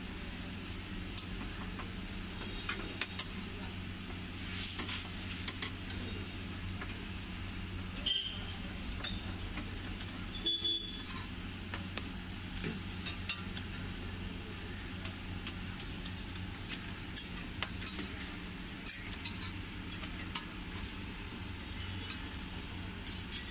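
Rotis frying in oil on a flat iron tawa: sizzling, with a steel spatula scraping and tapping the griddle in scattered sharp clicks, over a steady low hum.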